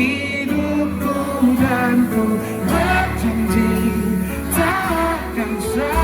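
Live pop ballad: voices singing the chorus over a band with strummed acoustic guitar and a steady bass.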